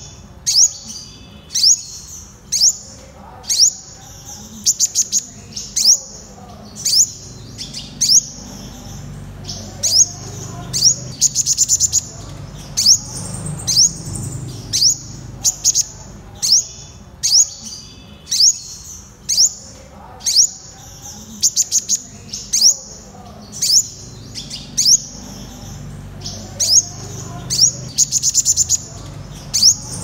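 Purple sunbird calling: sharp, high notes that drop quickly in pitch, repeated about once a second, now and then run together into quick strings of several notes.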